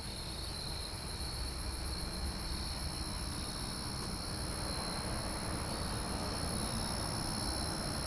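Crickets chirping steadily, several high trills overlapping, over a low rumble.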